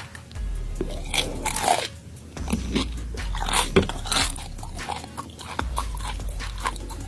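Close-up crunching and chewing of deep-fried tarantula, with irregular crisp bites.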